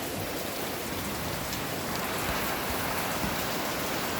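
Steady rain falling, an even hiss that swells slightly about two seconds in.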